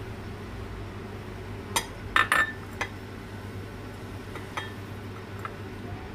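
A small glass dish clinking against a ceramic bowl several times, in short sharp taps, as instant coffee is tapped out of it onto henna powder. A low steady hum runs underneath.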